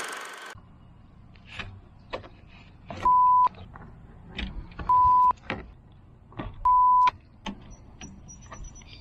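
Three short censor bleeps, each a steady pure tone about half a second long, the loudest sounds here. Between them come light clicks and scrapes of a screwdriver working at the plastic radiator drain plug.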